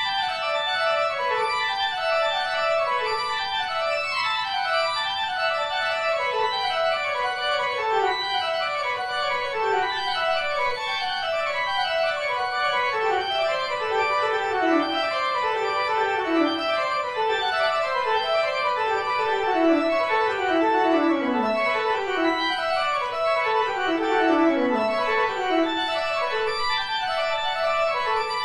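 Organ music: quick runs of notes falling in pitch, one overlapping the next, at a steady level.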